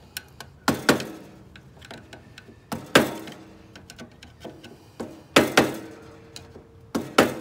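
Hammer blows on the steel front steering spindle of a ride-on mower: four pairs of sharp metal knocks about two seconds apart, each knock followed by a short metallic ring.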